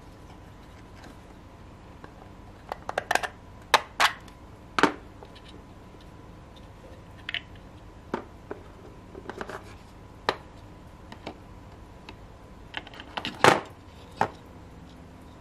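Hard 3D-printed plastic lock box and its parts being handled: irregular clicks and knocks as the box, lid and number dials are moved and set down, with the sharpest knocks a few seconds in and again near the end.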